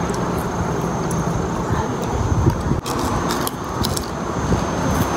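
Steady low background rumble, with scattered light clinks of a metal spoon and fork against each other and the plate.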